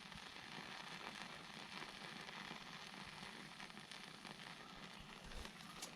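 Small wood fire burning, a faint, even hiss with scattered light crackles.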